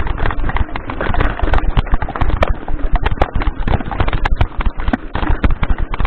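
Mountain bike clattering down a rocky trail: tyres striking rock and the bike's chain and frame rattling in quick, irregular knocks, over a low rumble of wind and vibration on the handlebar-mounted camera's microphone.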